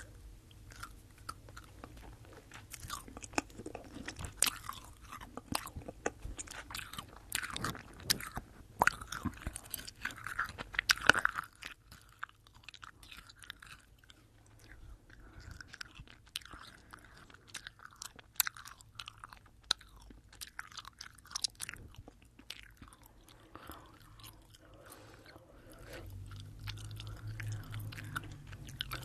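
Close, wet chewing of Fini sour sugar-coated gummy worms into a binaural microphone: sticky mouth clicks, smacks and light crunches of the sugar coating. A low hum comes in near the end.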